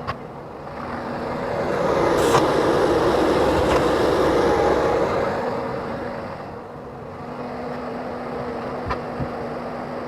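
Heavy machine running with a steady hum under a broad rush of noise that swells loud for a few seconds, then eases off, with a few scattered knocks.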